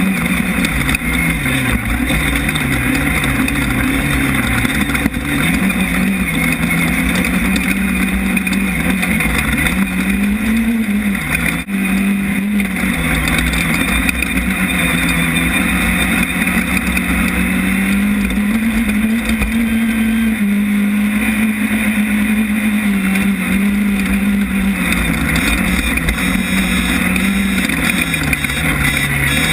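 Off-road race car engine running hard, heard from an onboard camera: its pitch rises and falls with the throttle over a constant loud rush of wind and rattling, with a brief dip just before the middle.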